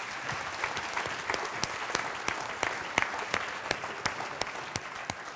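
Audience applauding: a dense patter of many hands clapping that begins to thin out near the end.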